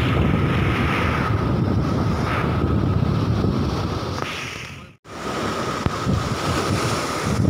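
Wind buffeting the microphone over sea waves surging and breaking on rocks, a steady noisy rumble. It cuts out for a moment about five seconds in and then carries on.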